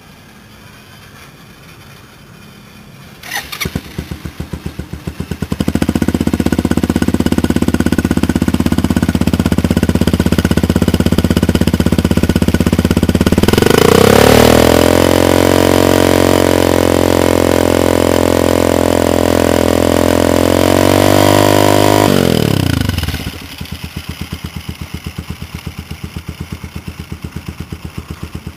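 Motorcycle engine heard through a custom gatling-gun-style multi-barrel exhaust. It starts about three seconds in and runs at a fast idle. Around the middle it revs up and holds high revs for about eight seconds, then drops back to a pulsing idle near the end.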